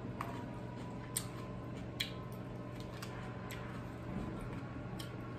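Metal spoon clicking lightly against a small bowl as someone eats from it: about half a dozen short, irregularly spaced clicks over a steady low hum.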